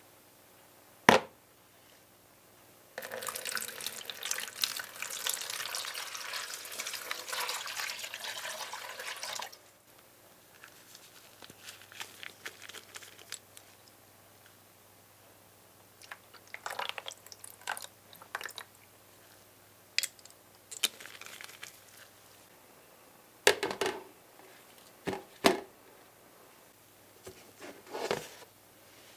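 A rusty die-cast model car body set down in a plastic basin with a sharp knock, then liquid poured into the tub for about six seconds, followed by scattered light drips and ticks. Near the end a clear plastic lid is knocked into place on the tub several times.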